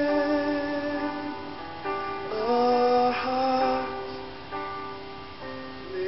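Live worship band music: a high male voice holds long sung notes that slide between pitches, over keyboard accompaniment.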